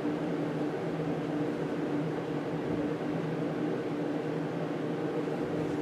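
Steady mechanical hum of a running fan or similar small motor, even and unchanging, with a few constant low tones under a soft hiss.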